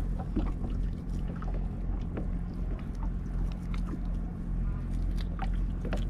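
A small boat's engine running steadily at idle, with scattered light clicks and knocks as the gill net and tangled fish are handled.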